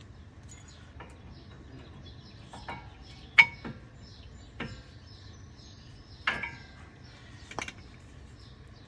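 Small metal brake pad clips and hardware clinking against the caliper bracket and tools: several sharp clinks with short metallic ringing, the loudest about a third of the way in and again past the middle. Birds chirp faintly throughout.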